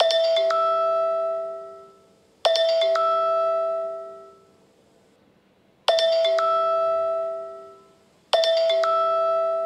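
An alarm going off as a falling two-note ding-dong chime like a doorbell, sounding four times about two and a half to three and a half seconds apart. Each pair of notes rings out and fades away.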